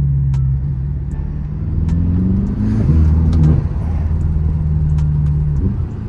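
BMW M6 engine and exhaust at low speed, heard from the cabin with the windows open. The engine note rises over about two seconds, falls back about halfway through, then holds steady, with a short rise near the end.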